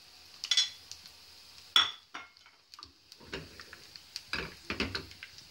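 A ceramic plate and knife clinking and knocking as they are set down on a stone counter and the frying pan is handled: two sharp knocks early, the louder just under two seconds in, then a cluster of clatters near the end. Under them, a faint steady sizzle of chopped garlic frying in oil.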